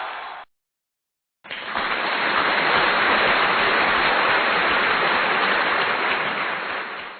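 A steady, even rushing noise, like a water or rain sound effect, starting after about a second of silence and running for about six seconds. Before the silence, a preceding noise fades out and stops half a second in.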